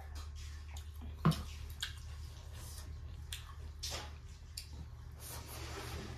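Eating by hand: wet squishing as fingers mix rice with pork gravy, and mouth sounds of chewing, with scattered sharp clicks. A single louder knock comes about a second in as the steel tumbler is set down on the table. A low steady hum runs underneath.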